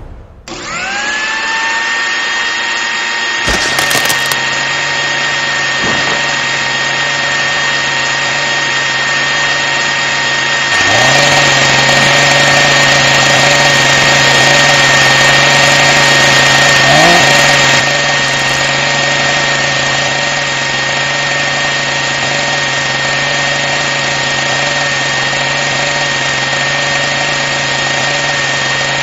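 Electric hand blender motor spinning up and running with a steady high whine over a low hum. A sharp knock comes about four seconds in, and the motor gets louder and harsher for several seconds in the middle before settling back to its steady whine.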